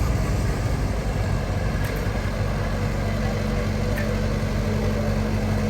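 Diesel engine of heavy construction equipment running steadily at low revs, with a steady hum; a faint higher tone joins about two seconds in.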